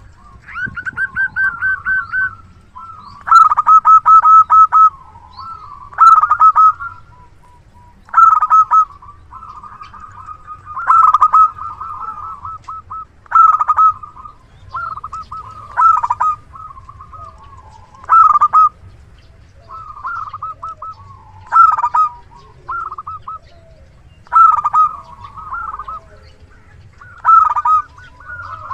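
Zebra dove (perkutut) singing: a loud song of quick, stuttering cooing notes, given in short phrases repeated about every two and a half seconds, around a dozen in all.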